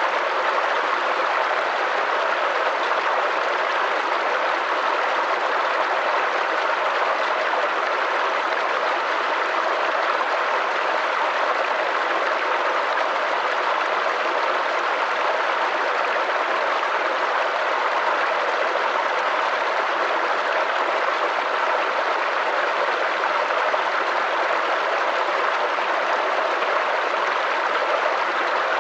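Small stream or brook of running water, babbling and trickling in a steady, even rush.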